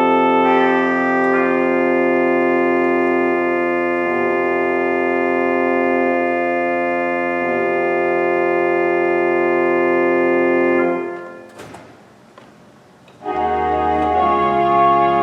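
Organ playing sustained, held chords; about eleven seconds in the chord is released, and after a pause of about two seconds a new chord enters with a deep bass note.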